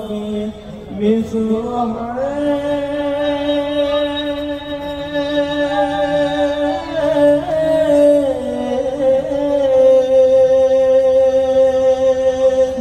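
A solo singer in a sholawat performance holding long, slowly gliding notes in a free-rhythm vocal passage, with no drumming under it.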